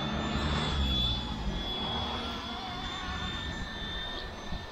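Small electric RC ERA C189 MD500 model helicopter hovering at a distance, its motor and rotors making a steady high whine. Wind rumbles on the microphone, most strongly over the first second or so.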